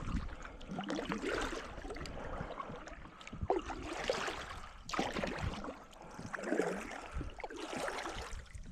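Water splashing and gurgling around a kayak, rising and falling in irregular swells every second or so.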